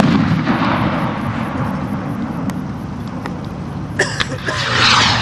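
A sudden boom from a hand-made skyrocket's burst, trailing off over about two seconds. About four seconds in, another skyrocket is lit with a sharp crack and lifts off with a whoosh that builds louder.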